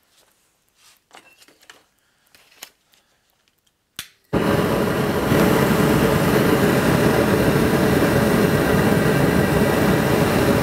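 Faint glove-handling rustles and clicks, then a click about four seconds in as a homemade home-foundry gas burner is lit with a long lighter. The burner catches at once and runs with a loud, steady rushing noise of gas and flame while its retrofitted flare is test-fired.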